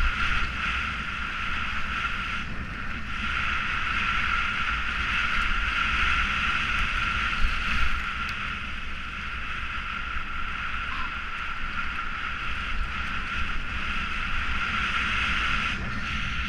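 Mountain bike descending a dirt trail: a low rumble from the tyres on the dirt and wind across the microphone, over a steady high buzz that drops out briefly twice, a few seconds in and near the end.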